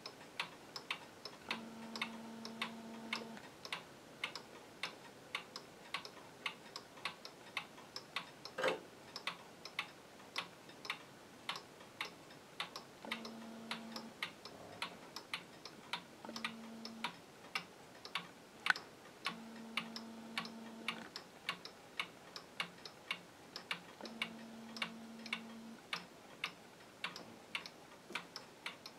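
Regulator wall clock ticking steadily, about two ticks a second. A faint low hum comes and goes several times.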